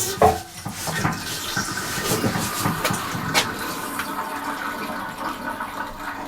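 Hydraulic oil rushing and gurgling through the 20-tonne hydraulic press's pump and hose, starting suddenly, with scattered clicks throughout. A fitting at the back of the pump is leaking.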